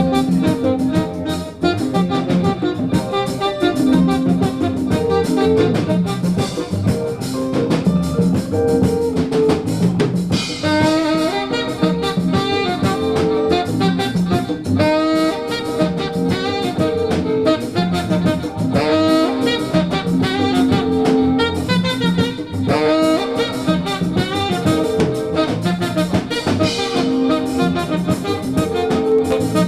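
Jazz band playing live: horns carrying held melody notes over drum kit and percussion.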